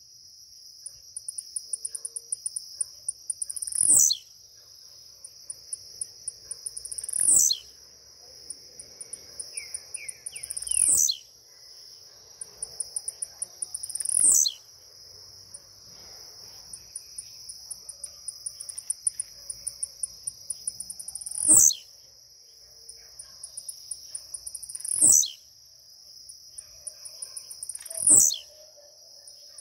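Blue-black grassquit (tiziu) singing its song over and over: a run of rapid, faint high ticks builds into a sharp, loud falling note, seven times, roughly every three to four seconds with one longer pause midway. A steady high-pitched drone runs underneath.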